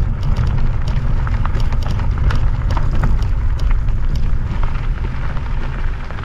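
Wind buffeting the microphone while riding an e-bike: a steady low rumble with scattered small clicks and crackles.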